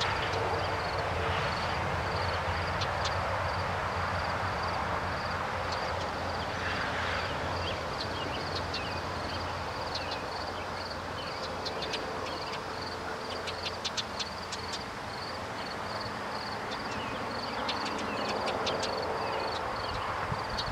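Outdoor ambience: a steady low rumble, with a high, evenly pulsing tone repeating throughout. Clusters of short, sharp high chirps or clicks come about halfway through and again near the end.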